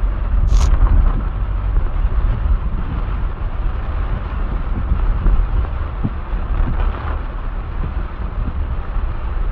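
Heavy rain drumming on a car's roof and windshield, heard from inside the car: a steady, dense rush with a deep rumble underneath. A brief sharp hiss cuts through about half a second in.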